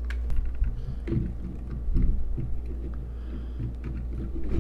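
Hands handling and fitting plastic camera parts: scattered light clicks and knocks over low rumbling handling noise, loudest about one and two seconds in.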